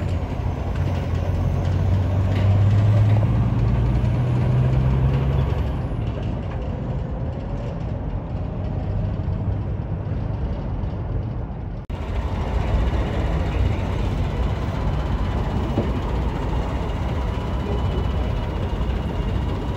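A semi truck's diesel engine pulling away with a livestock trailer, loudest a few seconds in and then fading as it drives off. After a sudden break about twelve seconds in, another big rig's diesel runs steadily with a thin, steady whine over the rumble.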